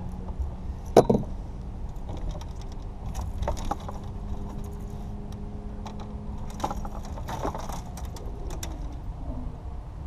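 Handling clatter on a boat deck: a sharp knock about a second in as the landing net is set down, then scattered light metallic clinks and rattles as the bass and lure are worked free of the net mesh.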